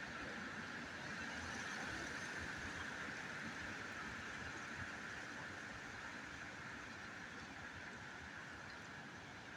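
Steady wind, a hissing rush with a whistling edge that swells a little about two seconds in and slowly eases off.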